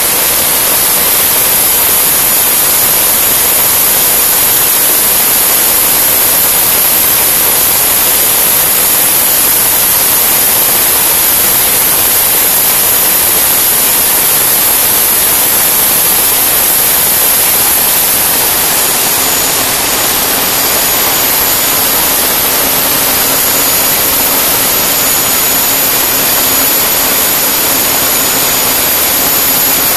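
Turbomeca Astazou 3N2 gas turbine running steadily on a test bench: a loud, even rush with a high whine on top. A little past halfway a low hum joins in and the level dips slightly.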